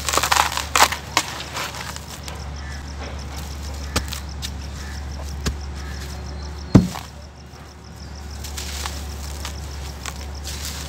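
Dry, gritty dirt being crumbled by hand in a plastic tub: crunching and sifting grains, loudest in the first second, with a few light clicks. One sharp knock about seven seconds in is the loudest sound, and a steady low hum runs underneath.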